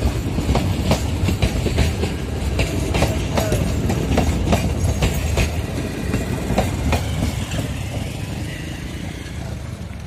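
Passenger train coaches rolling past close by: a steady rumble with the wheels clicking over the rail joints. The sound fades as the last coach passes and the train draws away near the end.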